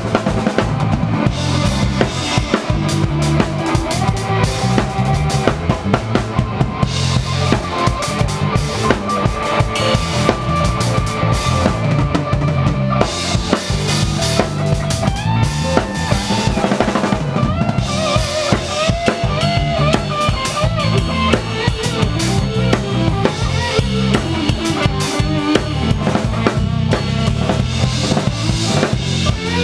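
Live band playing a reggae groove, with the drum kit loudest: steady kick drum, snare and cymbals over bass and electric guitar.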